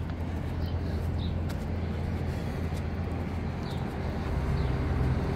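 Street traffic: a motor vehicle's engine running with a low hum, growing louder about four seconds in.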